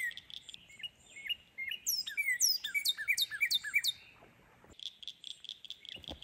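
Songbirds chirping and singing: many quick, falling whistled notes and short chirps over a steady high buzzing trill, breaking off briefly near the end.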